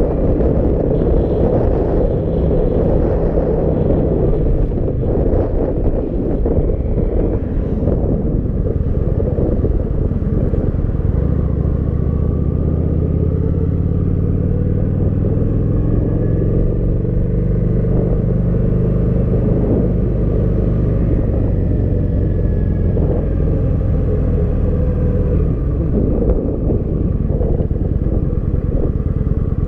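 Kawasaki Vulcan 900's V-twin engine running steadily while the motorcycle is ridden, mixed with heavy wind rush on the microphone.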